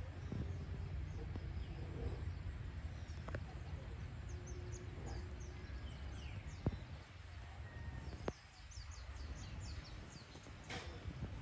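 Evening outdoor ambience: small birds chirping in quick runs of high notes, mostly in the second half, over a low steady rumble, with a few sharp clicks.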